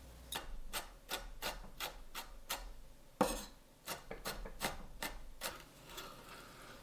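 Kitchen knife chopping on a cutting board in even strokes, about three a second, with one heavier stroke about halfway through, dying away near the end.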